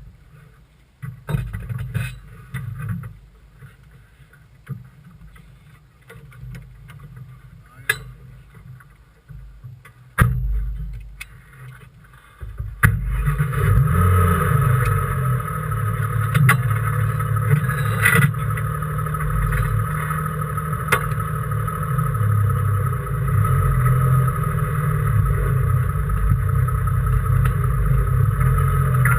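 Race car's engine heard from inside the cockpit. For the first half there is an uneven low rumble with scattered knocks and clicks. About 13 seconds in it jumps to a loud, steady drone that holds to the end.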